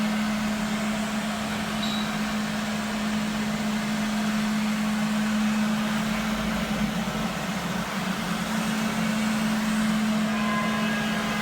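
Cleanvac B4501 battery floor scrubber running steadily, its brush and vacuum motors giving a constant low hum over an even hiss.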